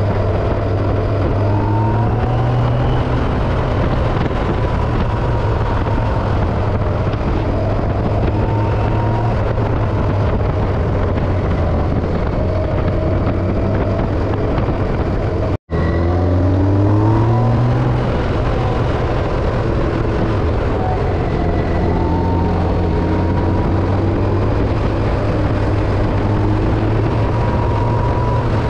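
Vehicle engine running at road speed under a steady rush of wind and road noise. About halfway through the sound cuts out for an instant, then the engine pitch rises as it accelerates for a couple of seconds before settling back to a steady cruise.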